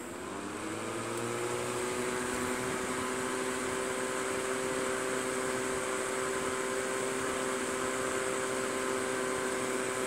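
Tahoe Comfy box fan switched to high speed: its motor hum rises in pitch and grows louder over the first couple of seconds as the blade speeds up, then runs steadily with a whoosh of air.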